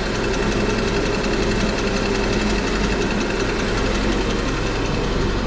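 Honda Civic EK's D16 four-cylinder engine idling steadily while warming up, with a knock that the owner places down in the bottom end of the block and suspects is a failing rod.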